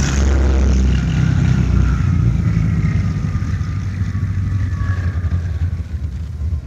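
Heinkel He 111 twin-engine bomber's piston engines droning as it comes in to land, the engine pitch sliding down and the sound fading gradually.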